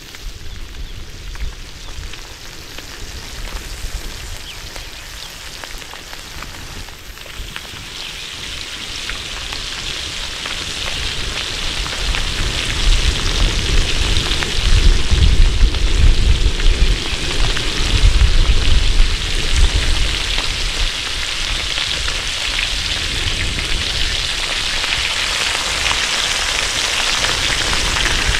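Small mullet frying in hot oil in a plow-disc pan: a steady sizzle that swells about eight seconds in and grows loud, with a low rumble under it through the middle.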